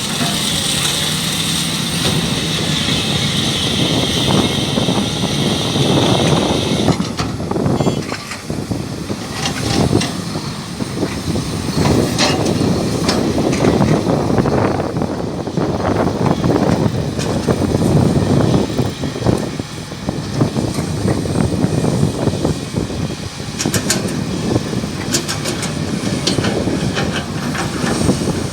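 Sany SY365 excavator working with its diesel engine running, while nickel ore clatters and knocks into the steel dump body of a Shacman F3000 truck. A high steady whine for the first several seconds cuts off suddenly.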